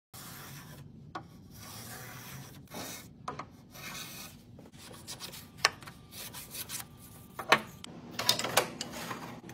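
Hand sanding a figured walnut panel with a sanding block: rasping back-and-forth strokes of abrasive on wood. A few sharp wooden knocks cut in near the end, the loudest about two-thirds of the way through.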